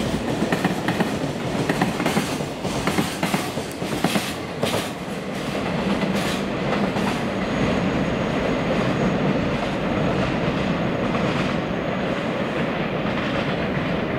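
Freight train's container flatcars rolling past, their wheels clicking over the rail joints. The clicks come thick and fast for the first few seconds, then give way to a steadier rumble as the last wagons draw away.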